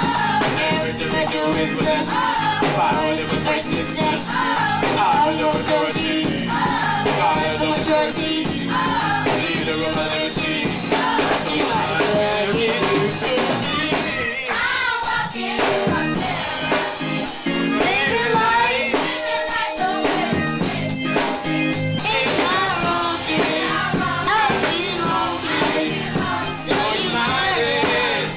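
Youth gospel choir singing, a young soloist leading on microphone, backed by keyboard and drums.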